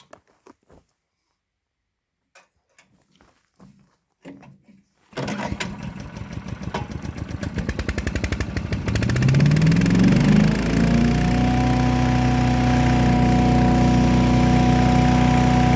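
Predator gas chipper/shredder started with a single pull of its recoil cord about five seconds in, after a few faint knocks. The engine fires unevenly at first and then speeds up over several seconds, with a rising whine as the chipper rotor, coupled straight to the crankshaft with no clutch, spins up with it. It then settles into a loud, steady run with a held whine.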